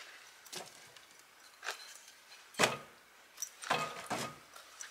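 Hardwood scrap blocks being set into the firebox of a 55-gallon steel drum stove: a handful of separate knocks of wood on wood and steel, the loudest a little past halfway.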